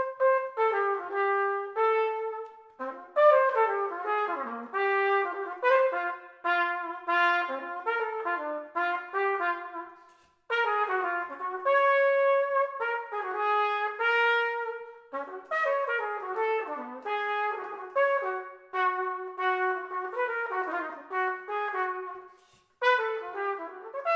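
Solo trumpet, played open without a mute, running through a melody of many quick notes in phrases, with short breaks about ten seconds in and again near the end.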